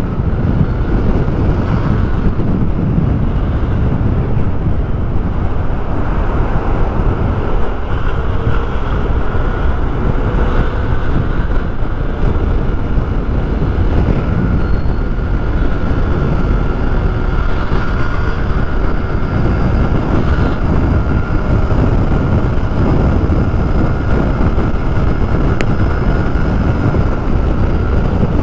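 Steady wind rush over the microphone mixed with the Yamaha Aerox scooter's engine, running with its stock muffler, held at a steady cruising speed.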